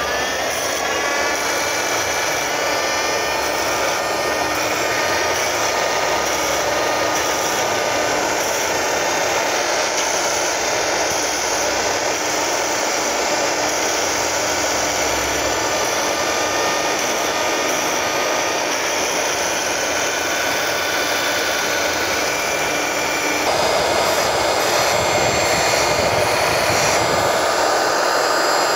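Electric round-knife cloth cutting machine running with a steady whine, its circular blade spinning against the built-in sharpening stone to hone the edge. About 23 seconds in the sound turns a little louder and rougher.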